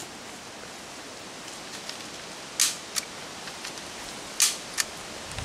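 Hand staple gun stapling a paper target to a tree trunk: four sharp snaps in two pairs, the first of each pair the louder.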